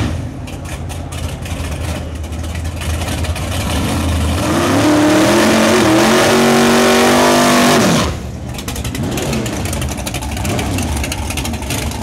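Big-block V8 of a Ford Thunderbird pro mod drag car running rough and choppy at low revs. About four seconds in it is revved hard and held high for about four seconds, spinning the rear tyres in a burnout, then it drops sharply back to a lumpy low-rev idle.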